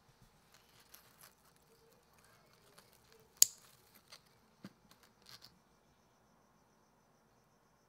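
Small scissors snipping a stem off a potted nerve plant (Fittonia albivenis): one sharp snip about three and a half seconds in, with soft clicks and leaf rustles before and after it as the plant is handled.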